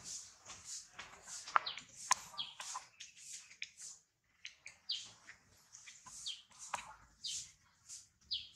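A bird chirping over and over, short high calls about twice a second.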